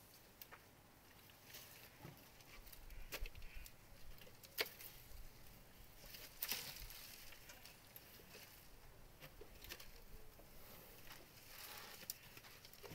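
Faint, scattered crackles and snaps of dry branches as an elephant handles and chews browse, with a few sharper snaps in the middle.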